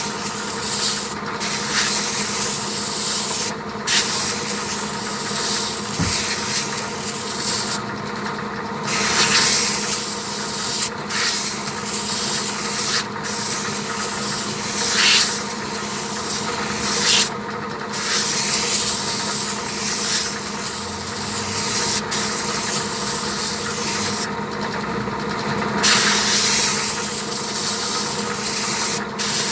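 Compressed air hissing from an air-gun nozzle as it blows the dust out of a truck's air filter element. The hiss is loud and broken by short pauses several times, over a steady hum.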